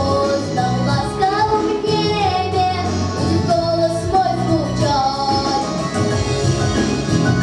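A young female voice singing a song over instrumental backing music. The voice drops away near the end, leaving the accompaniment.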